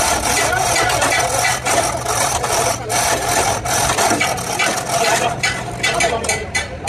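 Chain hoist rattling and clicking in quick, irregular strokes while it holds a hanging truck engine and gearbox, over a steady hum.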